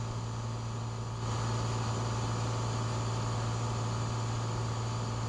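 Cessna 182's piston engine and propeller droning steadily, heard inside the cabin without a headset, getting slightly louder about a second in.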